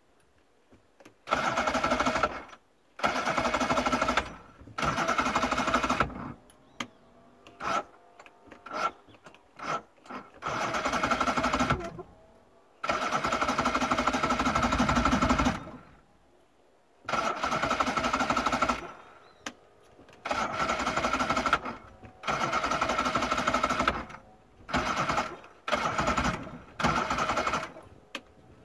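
Electric starter cranking a Johnson V4 two-stroke outboard in about a dozen bursts of one to three seconds, some only brief blips, with short pauses between. The engine does not catch: a no-start.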